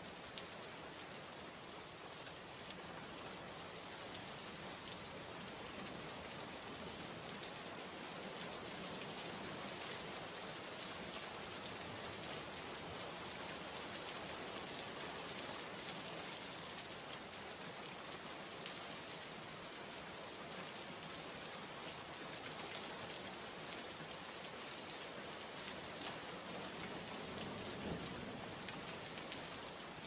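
Steady rain sound effect: an even hiss of patter with occasional small ticks.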